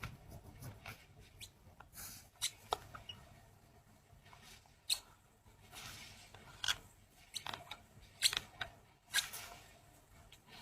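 A sleeping person's quiet pause between snores, broken by scattered faint mouth clicks and short breathy puffs.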